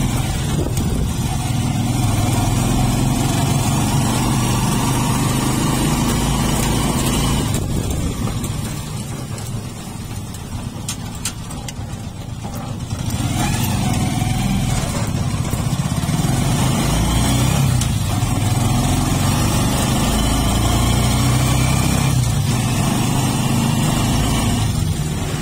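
Motorcycle engine running on the move, with wind rushing on the microphone. It eases off for a few seconds about a third of the way through, then picks up again.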